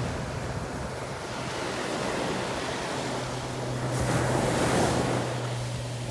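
Sea waves washing up on a sandy beach, with a louder rush of surf and foam about four seconds in.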